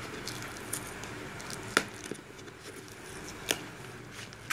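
A cardboard phone box being worked open by hand, with a low rustle of handling and a few sharp clicks or snaps, the loudest two about two seconds and three and a half seconds in.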